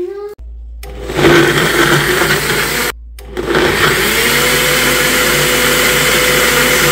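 Personal countertop blender running, blending a thick drink in its tall cup. It cuts out briefly about three seconds in, starts again, spins up and settles into a steady whir.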